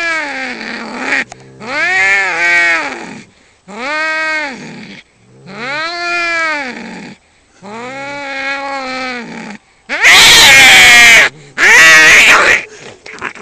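Domestic cats yowling at each other in a fight: about five long, drawn-out yowls that rise and fall in pitch, then two very loud, harsh screeches about ten and twelve seconds in.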